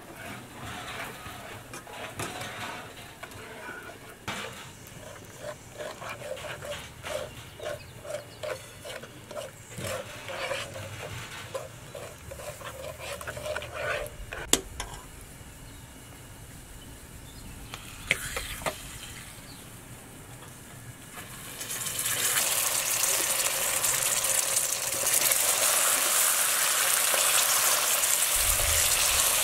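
A metal spoon stirring and scraping melted, caramelising sugar in a metal pan, with scattered short scrapes and clicks. About two-thirds of the way through, a loud steady sizzle starts as butter goes into the hot caramel.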